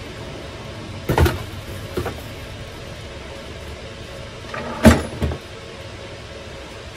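Hard knocks of a boxed disc sander being handled and set down on a wooden workbench: a loud knock about a second in and a louder one near five seconds, each followed by a lighter one.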